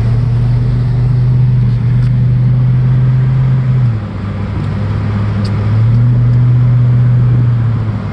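A vehicle's engine running as it drives slowly, a steady low hum. It eases off about four seconds in and picks up again about two seconds later.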